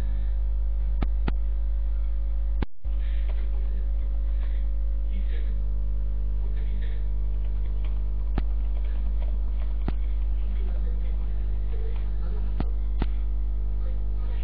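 Steady electrical mains hum with a ladder of overtones on a live online audio feed, broken by a few faint clicks and a brief dropout about two and a half seconds in.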